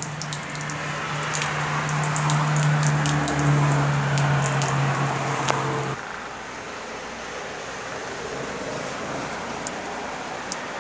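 Water jetting from a push tap under a vehicle's running board and splashing onto a tiled floor, with the steady hum of an electric water pump driving it. Pump and water cut off together, abruptly, about six seconds in, leaving a faint steady background.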